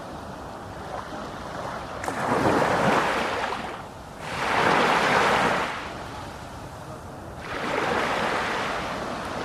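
Sea waves breaking on the shore: three surges of surf about two to three seconds apart, each swelling and ebbing, with a steady wash of water between them.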